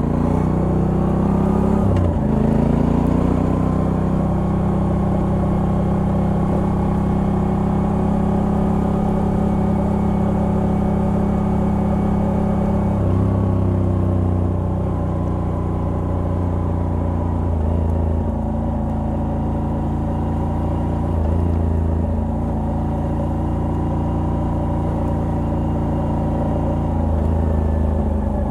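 Moto Guzzi V85TT's air-cooled V-twin running under way, through a stock exhaust fitted with a Mistral decat pipe. The engine note is steady, stepping in pitch about two seconds in and again several times later.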